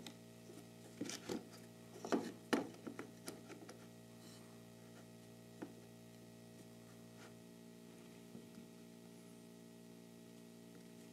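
A few light knocks and clicks of wood and metal as a plywood workpiece is laid against a table saw sled and its toggle clamps are handled, bunched in the first few seconds with one more click about halfway through. Under it a faint steady hum.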